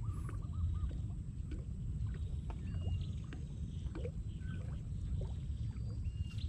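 Steady low rumble of wind on the microphone, with birds calling over it in short chirps and whistles.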